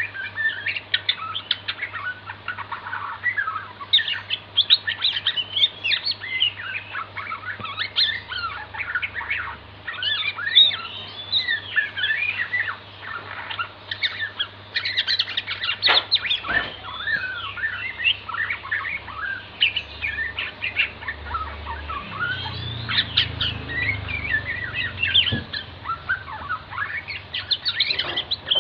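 White-rumped shama singing a rapid, varied song of clear whistles, slurred glides and chirps, nearly without a break.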